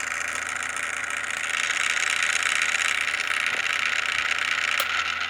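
Small cooling fan inside an amplifier running with a steady, high-pitched vibrating noise and a low hum underneath. The fan's shaft has play, so it vibrates as it spins.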